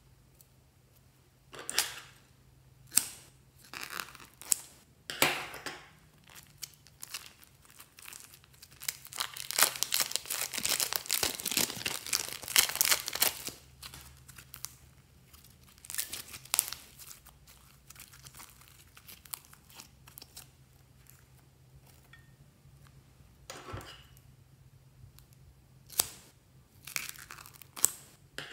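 Thin plastic piping bags crinkled and peeled away from soft slime by hand. First come separate sharp crackles, then a few seconds of dense crinkling about a third of the way in, then scattered crackles again.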